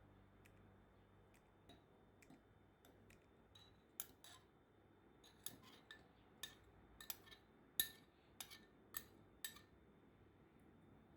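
Light kitchen handling: a run of about a dozen sharp clicks and light clinks of utensils against dishes, starting about four seconds in, some with a brief high ring.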